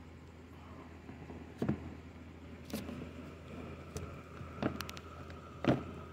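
Hard plastic knocking and clicking as plastic tub enclosures are handled and a lid is opened: about five separate knocks, the loudest near the end.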